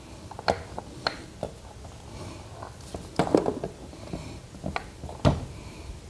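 Scattered clicks and knocks of a 7-inch dust shroud and an angle grinder being handled and pushed together while trying to fit them: a quick cluster of rattling about three seconds in and a sharp knock near the end.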